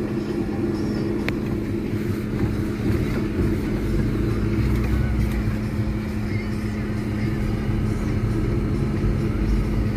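Car cabin noise while driving on a snow-covered road: engine and tyre noise as a steady drone with a constant low hum.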